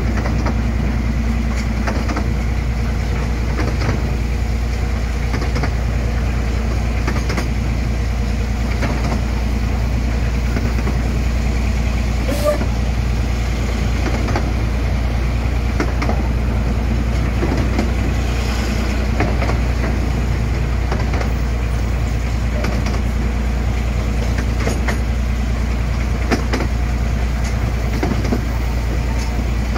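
A miniature-railway diesel locomotive, the ex-Fairbourne Railway no. 15, running steadily as it hauls the train, heard from an open carriage. The carriage rolls along the rails with scattered light clicks and rattles.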